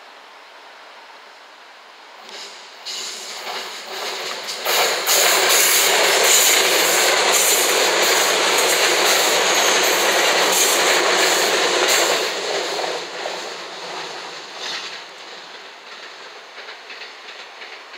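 JR West 227 series six-car electric train passing close by, its wheels clacking regularly over the rail joints. The sound builds from about two seconds in, stays loud for about seven seconds as the cars go past, then fades as the train draws away.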